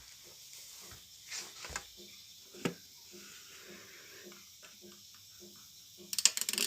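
Faint handling noises: soft rustling swishes, a sharp tap about two and a half seconds in, and a burst of dense crackling near the end, over a soft regular low pulsing.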